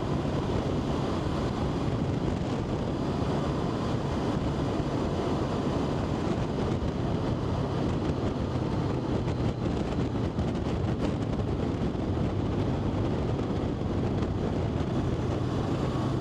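A vehicle's engine running at a steady drone under heavy wind noise buffeting the microphone while on the move.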